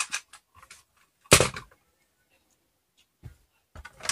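Hard plastic parts of a G.I. Joe Dragonfly toy helicopter being handled and set down on a table: light clicks, then one sharp knock about a second in, and more clattering near the end.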